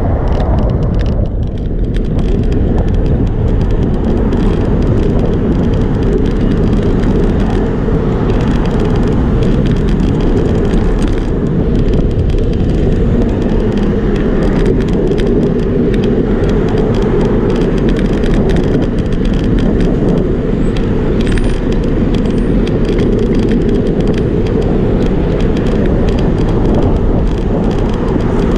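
Steady low rumble of a moving bicycle ride: wind buffeting the bike-mounted camera's microphone and tyre noise on the paved path, with road traffic running alongside.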